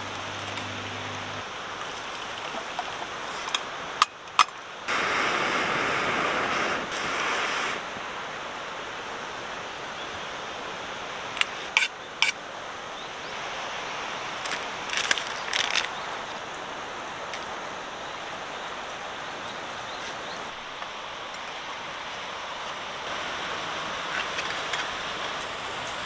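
Campfire cooking sounds: a steady hiss with a few sharp clicks and knocks, and a louder hiss for about three seconds about five seconds in.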